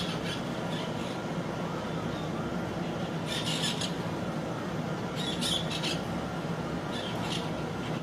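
Parakeets giving short, shrill chattering calls in several brief bursts, the strongest a little after three seconds in and again after five seconds, over steady background noise with a low hum.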